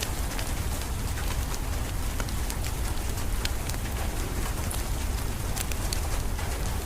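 Steady rain mixed with a crackling wood fire: a constant hiss with a low rumble underneath, and scattered sharp pops and clicks throughout.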